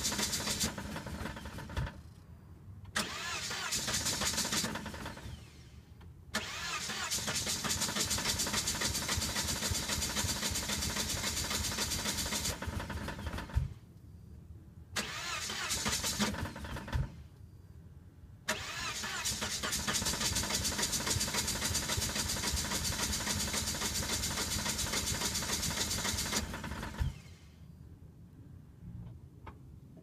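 1998 Volvo V70 T5's turbocharged five-cylinder engine being cranked over by its starter in five attempts with short pauses between them. Two of the attempts are long, about seven and eight seconds. The engine never catches and runs: a no-start.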